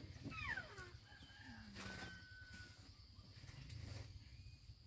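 Quiet rural background with a few faint animal calls: short calls falling in pitch in the first second, and a lower falling call about two seconds in.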